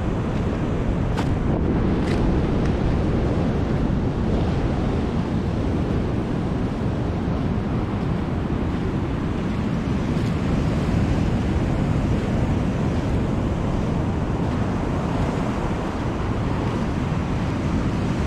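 Ocean surf breaking and washing up the beach in a steady rumble, with wind buffeting the microphone.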